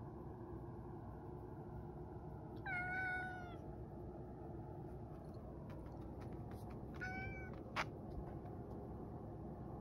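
Grey tabby tomcat meowing twice, the first call about a second long and the second shorter, a few seconds apart. A sharp click follows just after the second meow.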